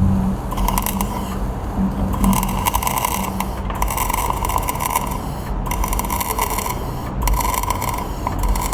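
Electric arc welding: a continuous crackling sizzle from the arc, broken off sharply for an instant three times, over a low steady hum.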